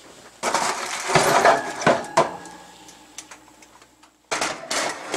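Aluminium foil crinkling over a metal roasting pan as the foil-covered pan is handled, with sharp clicks and knocks of the pan. There are two bouts of crackling, the second starting about four seconds in as the foil is pulled back.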